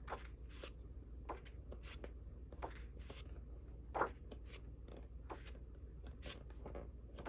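Sheets of patterned scrapbook paper being handled and turned over: scattered soft rustles and light taps, one a little louder about four seconds in, over a faint steady hum.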